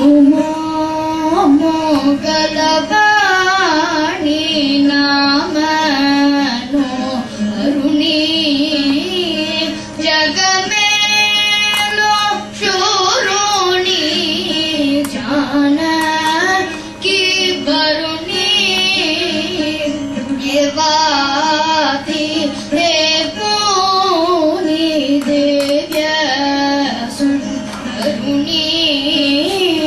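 A child singing a Carnatic song solo, with gliding, ornamented melodic lines over a steady drone.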